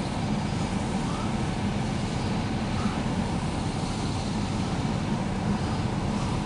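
CSX switch rail grinder running with a steady low mechanical rumble.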